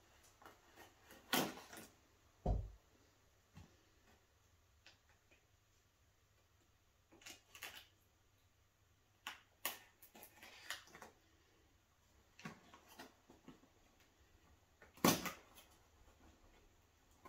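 Small craft knife scraping and slitting packing tape on a cardboard parcel, with scattered scratches, rustles of tape and paper label, and light taps on the box. There is a low thump a couple of seconds in, and the loudest scrape comes near the end.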